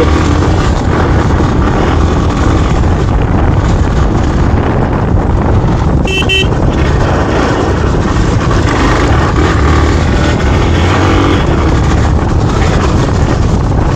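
Hero Xpulse 200's single-cylinder engine running under way on a rough dirt track, with steady wind rush on the microphone. A short beeping tone sounds briefly about six seconds in.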